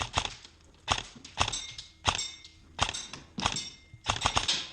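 Airsoft rifle firing a string of quick shots, mostly in pairs, with BBs hitting steel targets that answer with short metallic pings.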